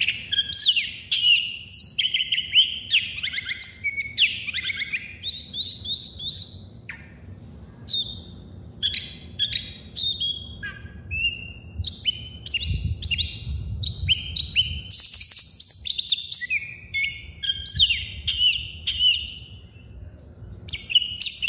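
Many small birds chirping and twittering in quick, overlapping calls with short falling trills, over a low rumble that swells for a couple of seconds around the middle.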